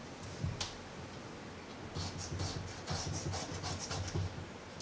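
A coin scraping the latex coating off a scratch-off lottery ticket in short, quick strokes, about four a second, starting about two seconds in.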